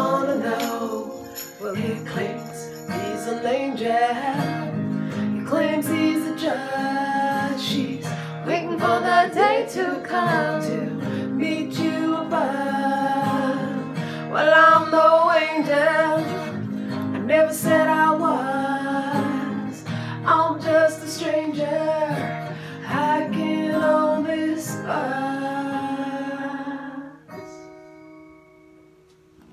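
A woman singing over a strummed acoustic guitar. About 27 seconds in, the song stops and a last chord rings out and fades.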